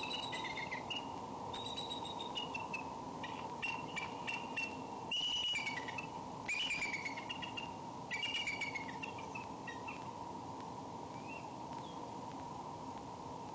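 Bald eagles calling at the nest: bursts of high, chittering, whistled calls repeated over roughly the first nine seconds, then only a couple of faint notes. A steady hum runs underneath.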